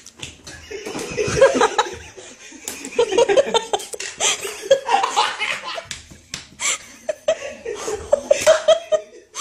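Several men laughing hard and continuously in bursts.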